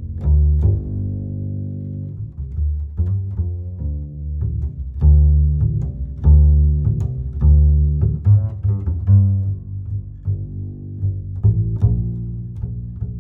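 Background instrumental music with a low melody of short and held notes.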